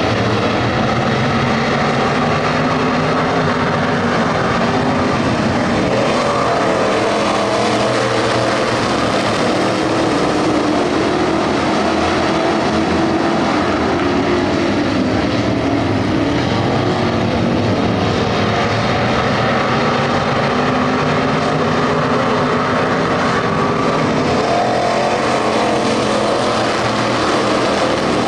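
A pack of dirt-track stock cars racing, many engines running hard together, their pitches rising and falling as the cars go around the oval.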